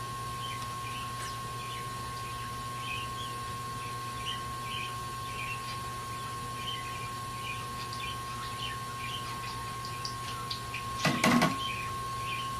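Steady electrical hum with a high, even whine, over faint scattered chirps; about eleven seconds in, a short clatter of handling noise.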